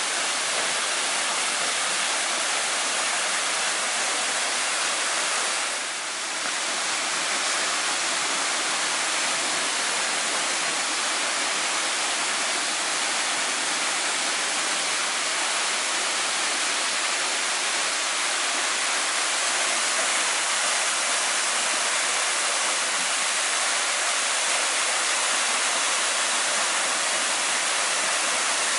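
Small waterfall pouring into a rock pool: a steady, even rush of water, briefly softer about six seconds in.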